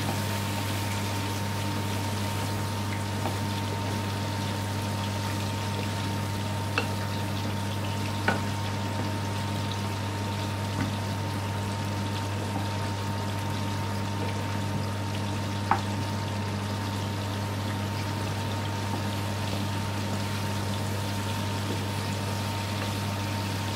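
Chickpeas and green pepper frying in ghee in a metal pan, a steady sizzle over a steady low hum, as a wooden spoon stirs them, with a few light knocks of the spoon against the pan.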